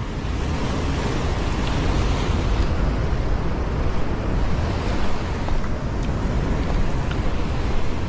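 Heavy surf breaking and washing over a rocky shore in a steady rush, with wind rumbling on the microphone.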